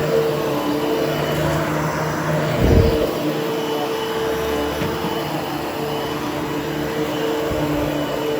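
Upright vacuum cleaner running steadily as it is pushed over damp, freshly cleaned carpet, with a steady motor hum; a short low thump comes about three seconds in.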